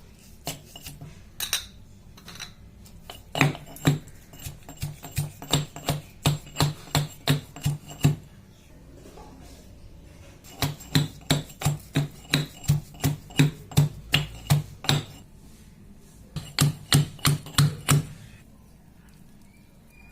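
Torn vasaka (basak) leaves being pounded with a pestle to crush out their juice: runs of even knocking strokes, about two or three a second, in three bursts with short pauses between.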